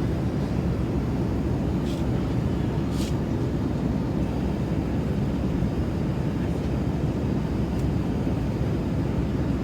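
Steady low rumble of a jet airliner's cabin noise in flight, with two small clicks about two and three seconds in.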